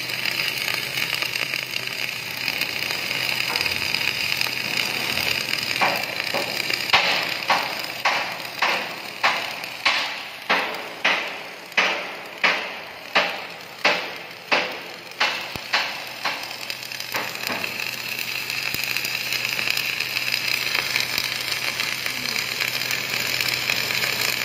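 MIG welding arc from a Koike Wel Handy Multi magnetic welding carriage, a steady crackling hiss. From about six seconds in to about seventeen seconds a run of sharp knocks sounds over it, evenly spaced a little over half a second apart.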